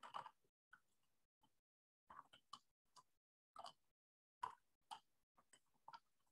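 Faint, irregular clicks of computer keyboard keys being typed, a dozen or so keystrokes in uneven clusters.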